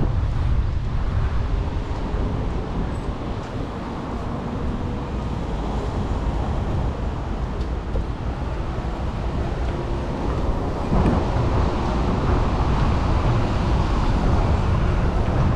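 Outdoor street ambience of passing road traffic with a steady low rumble, partly wind on the microphone, getting a little louder about eleven seconds in.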